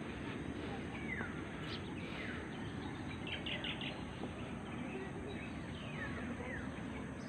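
Birds in the trees calling with short falling chirps, scattered every second or so and briefly bunched into a quick run a little over three seconds in, over a steady outdoor hiss.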